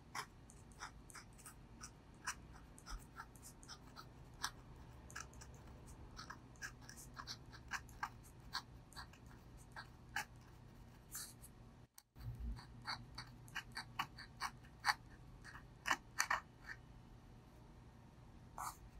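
Brause Steno dip pen nib scratching across paper in many short strokes while writing by hand, with a brief cut-out about twelve seconds in.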